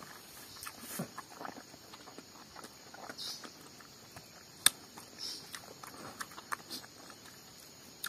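A person chewing and smacking a mouthful of rice and smoked pork, with scattered small wet clicks and one sharper click a little past halfway.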